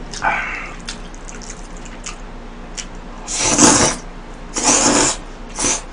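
Tomato spaghetti slurped off chopsticks: three noisy slurps, two long ones about three and a half and four and a half seconds in, then a short one near the end.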